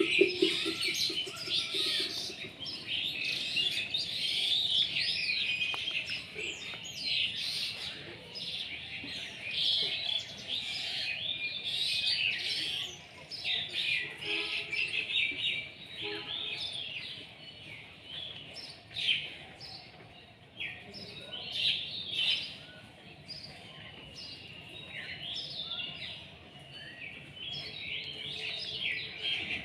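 Songbirds chirping and twittering, with many short calls overlapping continuously. The chirps come in louder and quieter stretches.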